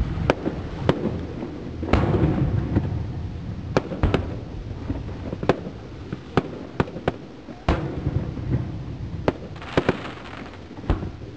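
Aerial firework shells bursting: more than a dozen sharp bangs at uneven spacing over a low, rolling rumble that swells after the bigger bursts.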